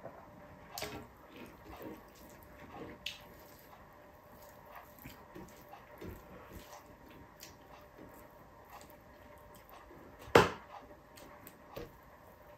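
Close-up eating sounds of beef stew and rice being chewed: scattered small mouth clicks and smacks, with one sharp, much louder knock about ten seconds in.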